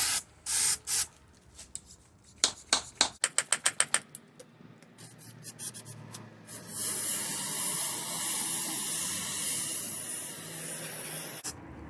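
Aerosol spray can of WD-40 and solvent spraying onto a sticking typewriter part. First come a few short squirts, then a quick run of short bursts, then one long steady spray lasting about five seconds that stops near the end.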